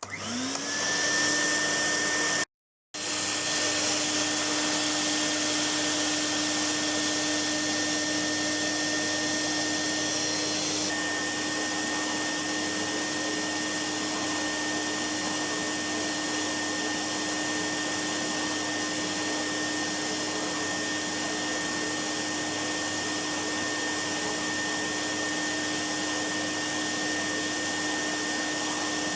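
Goblin 702 cylinder vacuum cleaner's bypass motor switched on, whining up to speed within about a second, then running steadily with a high whine over a rush of air. The sound cuts out briefly a couple of seconds in, and the air hiss shifts slightly about eleven seconds in.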